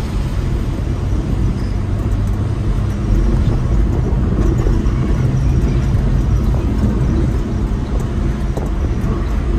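A Suzuki pickup's engine running with road noise, heard from inside the cab while it drives. The sound gets a little louder from about three seconds in, around a gear change.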